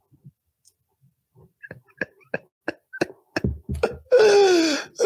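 A man laughing hard into a close microphone. After a near-silent start, short sharp sounds come faster and faster, and about four seconds in they break into a long high-pitched squeal that falls in pitch.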